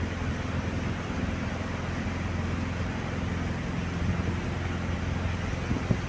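Klotok river boat's engine running at a steady low drone, with the hiss of water and air rushing past.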